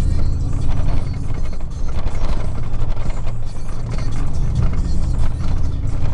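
Pickup truck's engine and exhaust droning steadily while driving, heard from inside the cab, through a Magnaflow muffler with its fiberglass packing removed. Radio music plays underneath.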